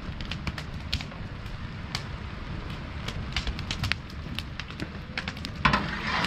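Wood fire crackling and popping under a large cooking pot, over a low rumble. Near the end a ladle dips into the boiling liquid in the pot and sloshes it.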